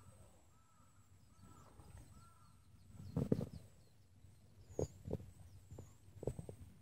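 Quiet outdoor ambience with faint birds calling in short, repeated arching notes. Several soft low thumps come through, the loudest about three seconds in and a few more near the end.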